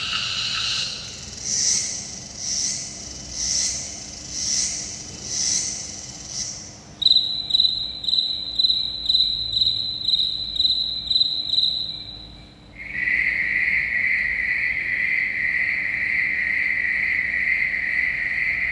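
Recorded cicada and cricket calls. First about six rhythmic buzzing pulses, roughly one a second. Then, from about seven seconds in, a high steady cricket trill, and from about thirteen seconds in, a lower continuous trill.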